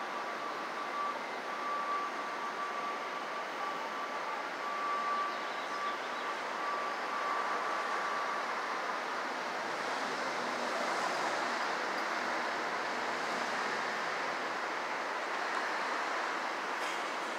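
Steady city street traffic noise that swells a little after ten seconds in. A thin, steady high tone runs over it through the first half, then fades out.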